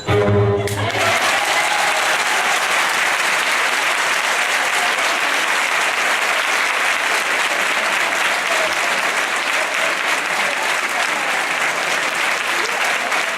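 The backing music's last note dies away in the first second, then an audience applauds steadily.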